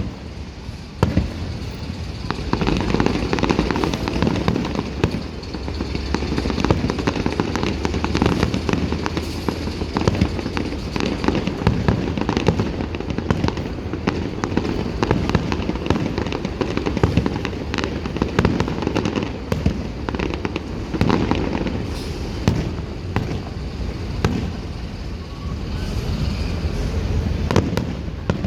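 Fireworks display: many bangs and crackles in quick succession over a continuous low rumble.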